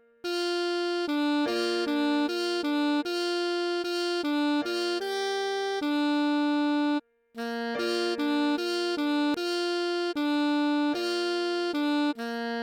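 Computer-rendered alto saxophone part played slowly at half speed: a string of separate clean notes over a steady held lower pitch, with a brief silent break about seven seconds in.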